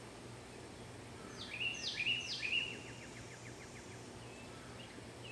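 A songbird calling about a second and a half in: three quick notes that each drop sharply in pitch, then a short rapid ticking rattle, with a few faint chirps after. Under it, a faint steady low hum.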